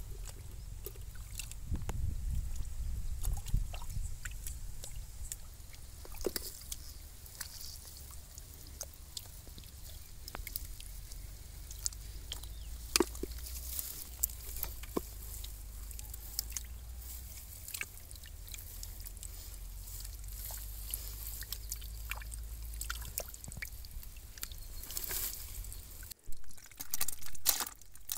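Hands sloshing and splashing through shallow muddy water while groping for fish, with scattered small splashes and clicks over a low steady rumble.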